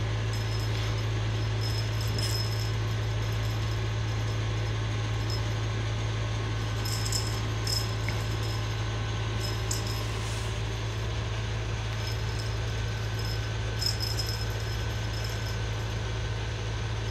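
A steady low hum, with faint light jingles from a cat's feather wand toy a few times as it is dangled and batted.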